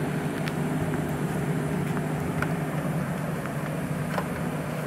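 Steady low background hum, with a few faint light clicks as the metal cowl gill and its hardware are handled and fitted against the cowl ring.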